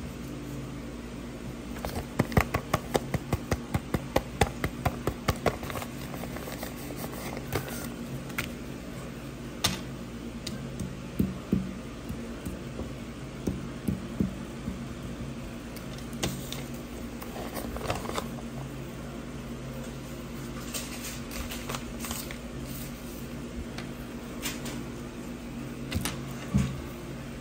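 Paper cut-outs being handled and set down on a wooden table: rustles and light taps, with a quick run of taps a few seconds in and scattered ones after. A steady low hum runs underneath.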